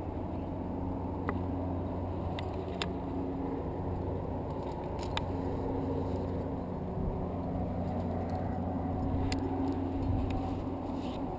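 A steady low rumble with a few sharp, light clicks scattered through it, as of a climber's gear and hands knocking on granite.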